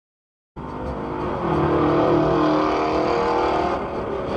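Car engine running and revving, starting abruptly about half a second in; its pitch climbs about a second in, holds, and eases off near the end.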